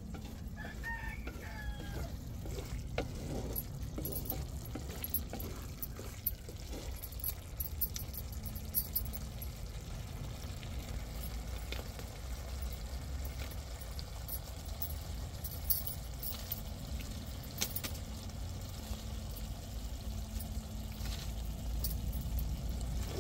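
Chickens clucking and a rooster crowing, clearest about a second in, over a low steady rumble.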